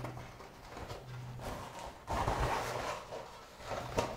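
A studded fat-bike tyre being pulled off its rim by hand: rubber rubbing and scraping against the rim, loudest for about a second from two seconds in, with a sharp knock near the end.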